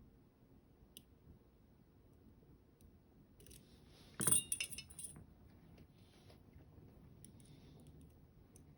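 Lock picks and tensioner working in an Alpha FB high pin count lock: a few faint ticks, then a short run of bright metal clinks and jingling about four seconds in.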